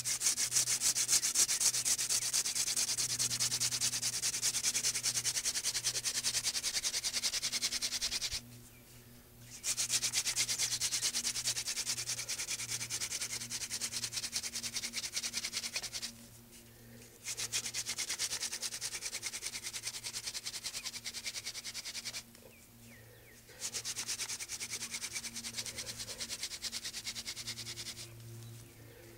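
Hand-drill fire-making: a weed-stalk spindle spun between the palms on a basswood hearth board, making a dry, rapid rubbing noise as it grinds to build an ember. It runs in four long stretches broken by three short pauses.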